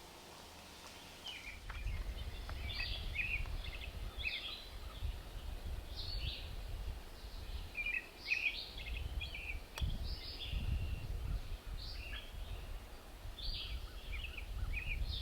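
Small songbirds chirping and singing in quick repeated phrases, over a low rumble that comes in about a second and a half in.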